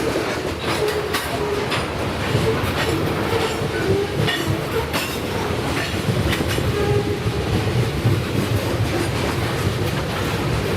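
BNSF freight cars rolling past: a steady rumble of wheels on rail with a continual run of sharp clicks as the wheels cross rail joints.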